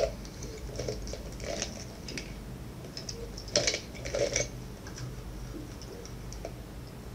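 Hands handling small parts on a desk: a plastic wall switch, a screwdriver and a glass jar of components. Scattered clicks, taps and rattles, with the loudest pair of clicks a little past halfway.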